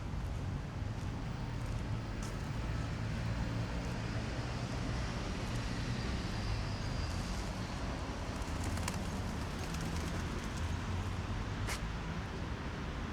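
City street ambience: steady traffic rumble with an even hiss, and a couple of sharp clicks in the second half.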